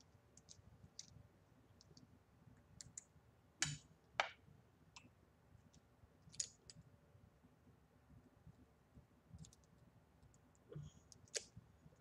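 Faint, scattered small clicks and taps as a copper tube e-cigarette mod and its glass tank are handled and fitted together. A pair of louder clicks comes about four seconds in.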